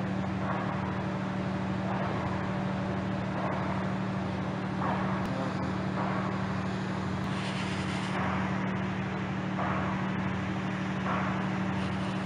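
Steady low engine hum with a regular pulse about every second and a half, and a brief hiss about seven seconds in.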